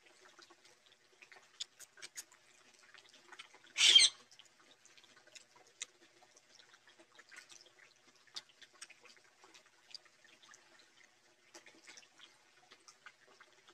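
Eating by hand: small wet chewing and lip-smacking clicks, with fingers mixing rice and curry on a banana leaf, and one loud crunch about four seconds in as a slice of raw vegetable is bitten.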